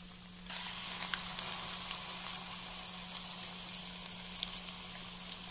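Chana dal (split chickpeas) going into hot oil in a kadhai: about half a second in, the oil's faint hiss jumps to a loud, steady sizzle with scattered crackling pops as the dal starts to fry.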